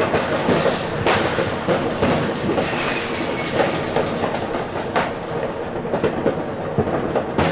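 New Year's Eve fireworks: firecrackers banging and crackling over and over at uneven intervals, with louder bangs about a second in and about five seconds in. Heard from inside a stationary tram's driver's cab.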